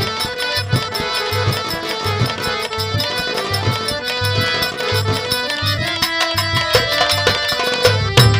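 Instrumental interlude of Indian folk theatre music between sung lines: a sustained reed-keyboard melody, like a harmonium, over a steady hand-drum beat with rapid ticking percussion.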